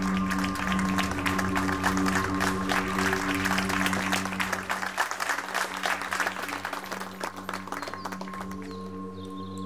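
Applause over droning background music with a sustained low chord. The clapping swells, then fades out about eight seconds in, leaving only the drone.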